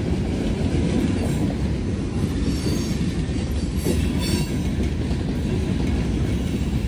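Norfolk Southern freight train rolling past, a steady heavy rumble of cars on the rails, with a faint high wheel squeal about two and a half to four and a half seconds in.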